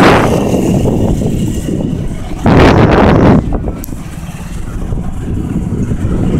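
Wind rushing over the microphone and low road rumble from riding in traffic. A loud gust of wind noise hits about two and a half seconds in and lasts just under a second.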